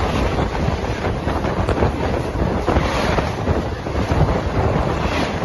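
Kanpur Shatabdi Express coaches passing at speed on the next track, heard from the open door of another moving train: a loud rushing noise with dense wheel-on-rail clatter and heavy wind buffeting on the microphone.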